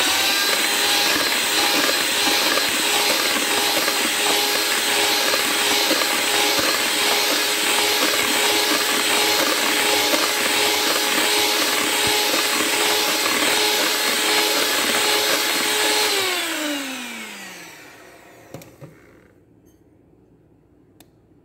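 Electric hand mixer running at steady speed, its beaters whirring through butter-and-egg-yolk cake batter. About 16 s in it is switched off and the motor winds down with a falling pitch, followed by a few faint clicks.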